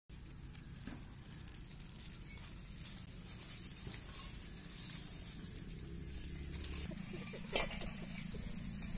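Outdoor field ambience: a steady hiss over a low wind rumble, with one brief sharp knock about seven and a half seconds in.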